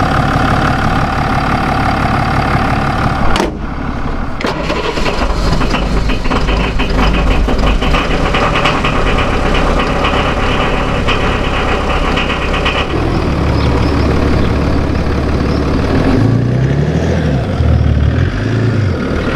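Diesel engines running in several abruptly cut clips: the Mercedes GLE 350d's three-litre inline-six diesel and the old Unimog 411's small 34 hp four-cylinder diesel. The long middle stretch has a fast, even clatter, and near the end the engine pitch rises and falls.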